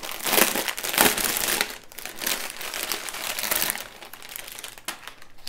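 Clear plastic bags of diamond painting drills crinkling as they are handled. The crinkling is loudest in the first couple of seconds and quieter near the end.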